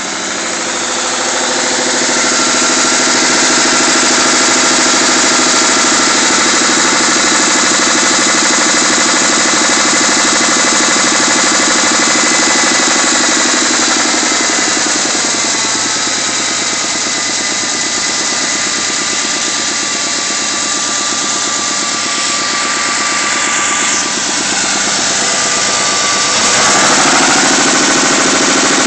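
Ford Mustang V6 engine idling with a rhythmic knock from the bottom end, which the owner takes for a spun bearing with no oil pressure. The idle sags slightly about halfway through and gets a little louder near the end.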